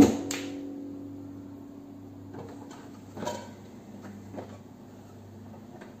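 Hansa dishwasher door pulled open after a wash cycle, with a thud right at the start and then a low ringing tone that fades slowly over several seconds. A few light clicks from the dish racks follow.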